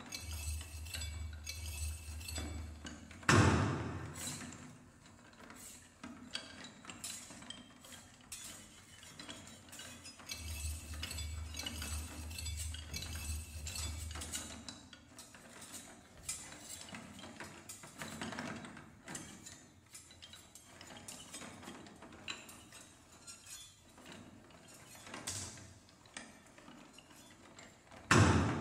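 Sparse contemporary percussion and tape music: scattered small metallic and glassy clinks and rattles over a low rumble that comes in twice, with a loud struck hit about three seconds in and another near the end.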